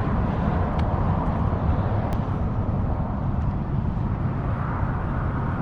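Steady rumble of highway traffic from a nearby interstate, with no single vehicle standing out.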